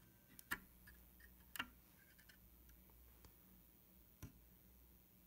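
Near silence with a few faint, short ticks of a soldering iron tip and knife tip touching the pins of a circuit board during desoldering.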